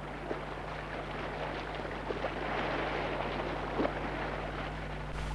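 Sea waves washing, a soft surging noise that swells about halfway through and then eases, over a steady low electrical hum.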